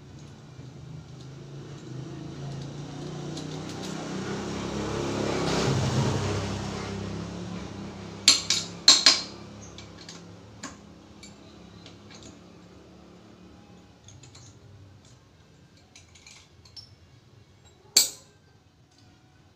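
Steel hand tools clinking against each other and against engine metal while an old Honda Supra X engine is taken apart: a quick run of sharp clinks about eight seconds in, scattered light taps after, and one loud clink near the end. Before the clinks, a low hum swells and fades.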